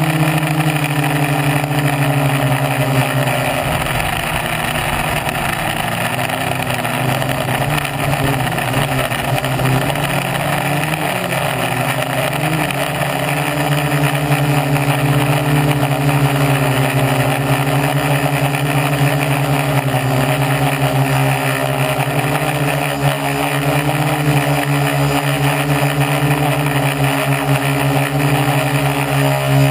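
A quadcopter's four Turnigy Gold 1100kv brushless motors spinning 10x4.5 props, heard from a camera on the frame as a loud, steady, buzzing drone. Its pitch wavers with throttle changes for the first dozen seconds, then holds steady.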